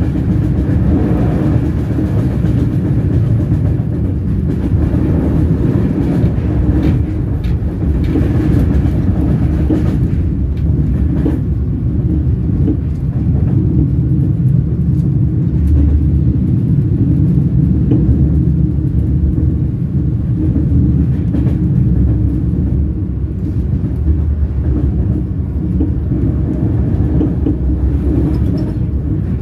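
Train wheels rolling on the rails: a steady, deep rumble, with a few faint clicks now and then.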